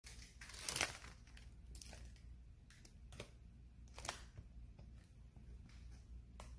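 Faint scattered rustles and about five short clicks, the strongest about a second in, over a low steady hum.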